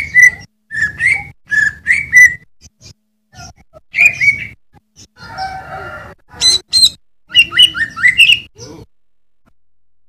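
Greater green leafbird singing: quick phrases of short, sharp notes in bursts, stopping about nine seconds in.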